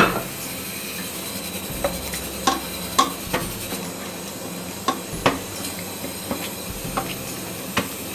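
Hands kneading soft naan dough in a steel plate: irregular sharp slaps and clicks as the dough is pressed and folded against the metal, over a steady background hiss. A sharp knock opens it and is the loudest sound.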